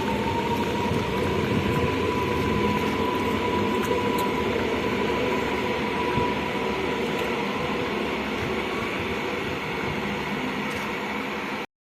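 Train running, with a steady rumble of wheels on rail and a high whine that rises a little and then holds. It breaks off abruptly near the end.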